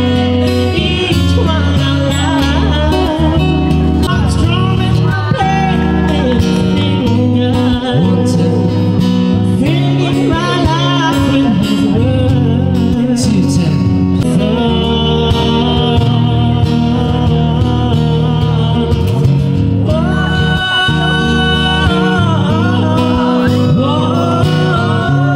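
A man singing into a microphone, accompanied by a strummed acoustic guitar, in a live acoustic duo performance.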